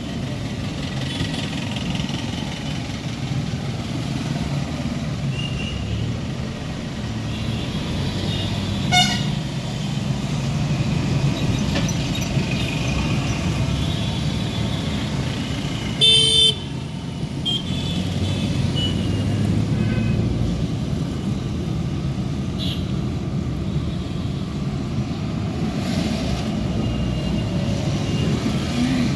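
Road traffic heard from inside a moving car: a steady low rumble of engine and tyre noise, with scattered vehicle horn toots. A short honk comes about a third of the way in, and the loudest, lasting about half a second, just past the middle.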